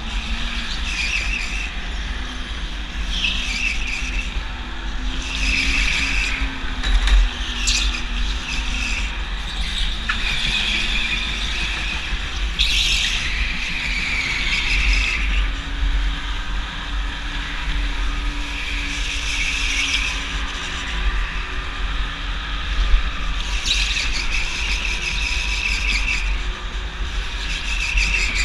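Go-kart heard from onboard while being driven hard: a steady low rumble from the kart and its motor, with the tyres squealing again and again through the corners, longest about halfway through.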